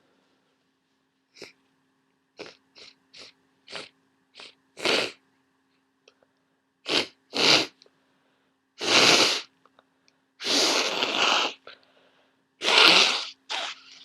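A person with a cold in a sneezing fit: a run of short, fainter sneezes and breaths, then louder, longer sneezes, the loudest three in the second half.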